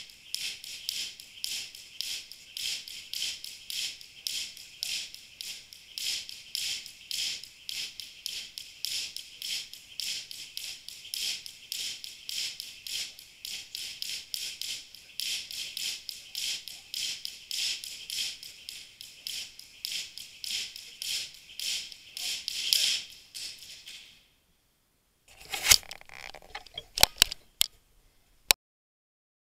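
Jump rope slapping the floor in a steady quick rhythm, about three times a second; it stops a few seconds before the end. After a short gap come a few sharp knocks and clicks from the camera being handled.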